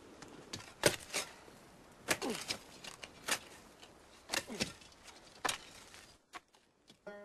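Digging tools, picks, striking into earth on a hillside: about seven heavy blows, most roughly a second apart, that stop about six seconds in. A plucked-string tune begins at the very end.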